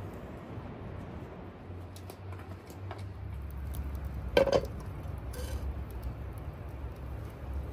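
A frying pan of chopped onion is set down on an iron stand over a wood fire, with one sharp clank just past the middle. A few light ticks come before it, and a low rumble runs underneath from a few seconds in.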